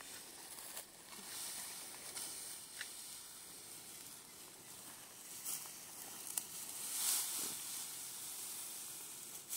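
Outdoor ambience: a steady high-pitched hiss with scattered faint ticks and rustles, the hiss swelling briefly about seven seconds in.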